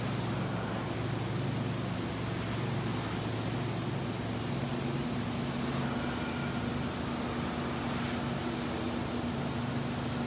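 Hot-water extraction carpet-cleaning wands working a carpet: a steady rushing suction and spray noise with a low hum underneath.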